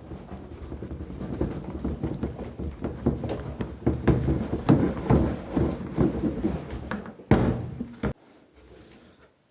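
Irregular knocking and clatter, with a louder burst about seven seconds in.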